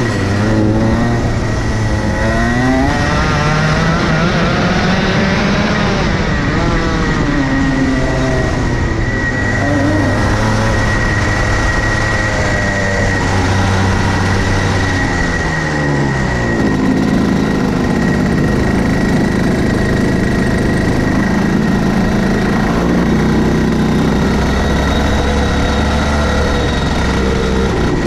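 Racing go-kart engine heard onboard, revving up and down as the kart accelerates and lifts off for corners. The pitch falls sharply about halfway through, then the engine runs steadier and lower.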